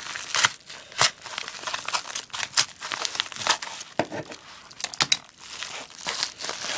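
Packaging being torn open and handled by hand: irregular crinkling and rustling with sharp crackles and clicks.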